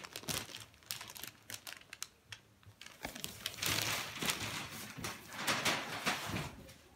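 Dress fabric rustling and crinkling as suit pieces are handled and shifted, with many small irregular clicks; the rustling grows louder a few seconds in.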